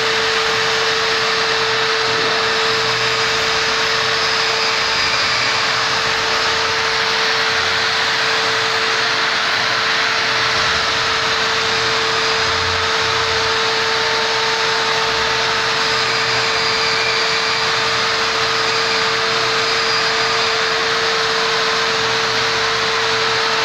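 Long-reach drywall pole sander running steadily against a plasterboard ceiling, with its dust-extraction hose attached: a constant motor whine over a dense hiss.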